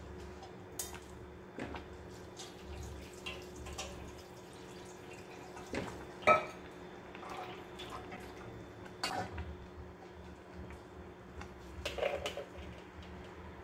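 Steel strainer, spoon and steel pot and bowl knocking and clinking as boiled instant noodles are drained, with water dripping from the noodles. The knocks are scattered, with one louder clank about six seconds in, over a low steady hum.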